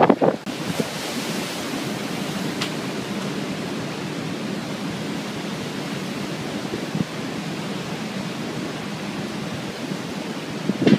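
Hurricane wind and storm surf making a steady rushing noise, with a few loud wind buffets on the microphone right at the start.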